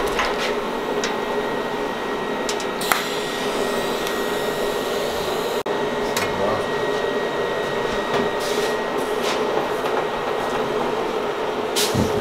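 Steady mechanical whirr and hiss of a running motor or blower in a metal workshop, with a few light clicks and taps.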